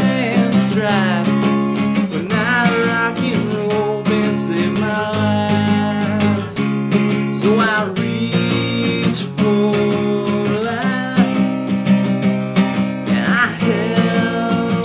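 Instrumental break of an acoustic rock song: an acoustic guitar strummed in a steady rhythm, with a bending, gliding melody line over it.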